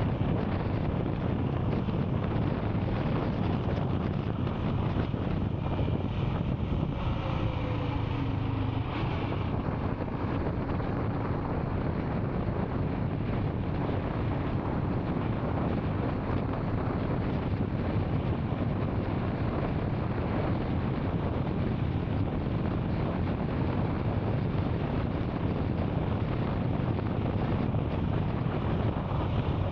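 Royal Enfield Scram 440's single-cylinder engine running on the move, with steady wind noise on the microphone. A brief falling pitched sound comes about seven seconds in.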